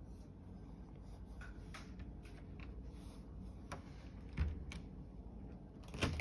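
Faint scattered handling clicks, a soft thump a little after four seconds in, then a sharper click as a metal door lever handle is turned and its latch released near the end.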